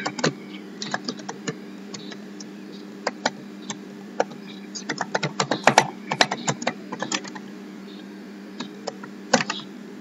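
Typing on a computer keyboard: irregular keystrokes, busiest around the middle, with a pause of about a second and a half near the end.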